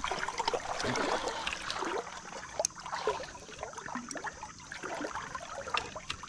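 River water splashing and gurgling close by, with many small irregular splashes and drips, as a hooked smallmouth bass is brought in to the boat.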